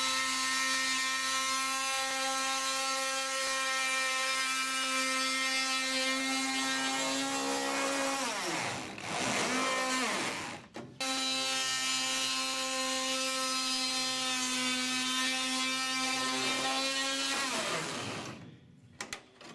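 Oscillating multi-tool buzzing steadily as its blade cuts through aircraft metal skin. About eight seconds in its pitch sags and comes back, it cuts out briefly, then runs again until it winds down near the end.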